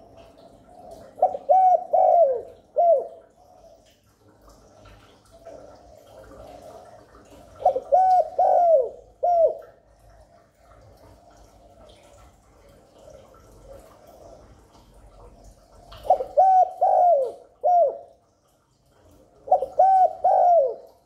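Spotted dove cooing: four phrases of three or four hoarse coos each, a few seconds apart.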